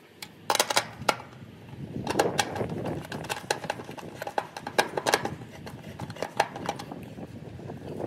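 Irregular metallic clicks and small knocks of a screwdriver tightening the screw on the metal strap that holds a new dual run capacitor inside an AC condenser unit's control panel, the sharpest few about half a second to a second in.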